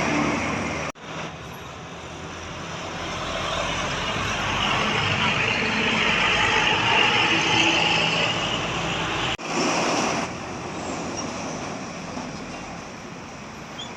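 Road traffic with a large vehicle, most likely a bus, passing: engine and tyre noise swells to a peak about seven seconds in, then fades. The sound breaks off abruptly about a second in and again near ten seconds.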